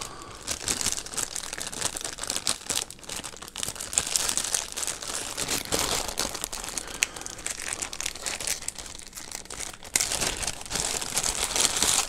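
Clear plastic packaging bags crinkling and rustling as they are handled, a continuous crackle made of many small clicks.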